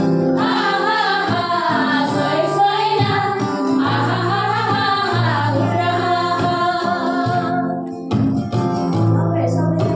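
Women singing a Nepali Christian worship song together over instrumental accompaniment; the singing breaks off briefly about eight seconds in, then resumes.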